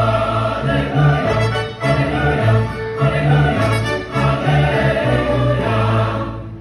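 A large choir singing with a live orchestra, in phrases about a second long over a strong bass line; the level eases a little just before the end.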